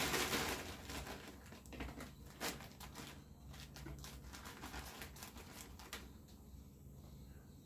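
Plastic bag of frozen mixed berries crinkling and rustling as it is handled and cut open, with a few sharp clicks. A low steady hum runs underneath.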